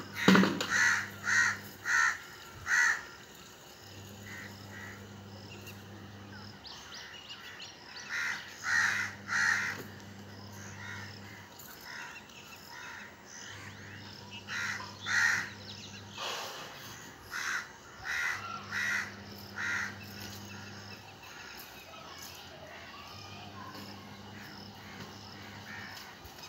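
Crows cawing in runs of several harsh caws in quick succession, with pauses between the runs; the calling stops about five seconds before the end. A faint low hum switches on and off underneath.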